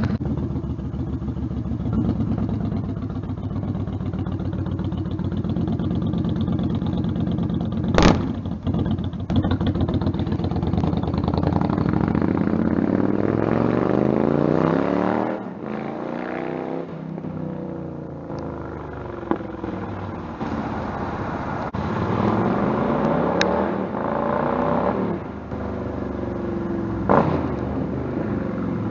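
Yamaha Stryker's V-twin engine through a Vance & Hines Twin Slash Staggered exhaust, with freshly fitted header gaskets. It runs steadily close by for about eight seconds; then, after a sharp knock, the motorcycle rides by twice, its revs rising and falling as it accelerates and passes.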